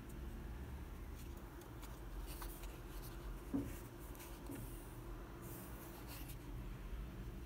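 Faint scratching and rustling of fingers handling a paper-covered rigid gift box with a slotted insert, with one sharper tap about three and a half seconds in, over a low steady room hum.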